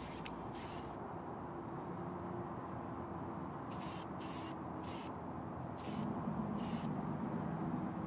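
Hand-held aerosol spray unit spraying silver wheel paint in short hissing bursts: two at the start, then five more in quick succession from about four seconds in. These are light blending coats, with a steady low background hum underneath.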